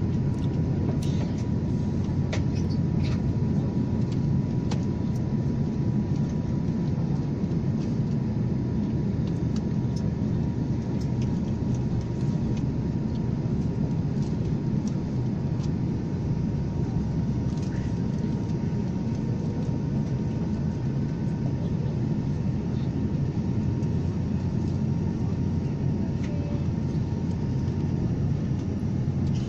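Steady low rumble of an airliner cabin in flight, engine and airflow noise, with a faint steady high tone that stops near the end.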